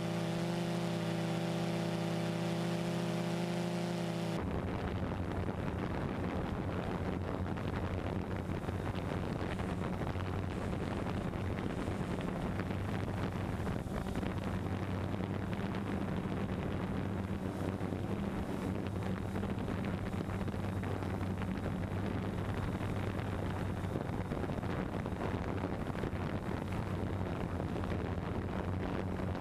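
Multirotor camera drone's motors and propellers humming steadily, with some wind on the microphone. About four seconds in the hum changes abruptly, from a cleaner hum of several steady pitches to a rougher, hissier one.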